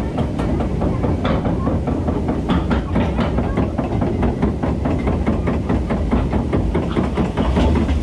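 Log flume boat being hauled up the lift hill, the lift mechanism clattering with a fast, uneven run of clicks and clacks over a low rumble.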